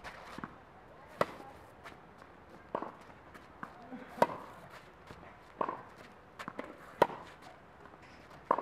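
Tennis ball struck hard with a racket on groundstrokes: a sharp pop about every second and a half, six times, with fainter ticks between.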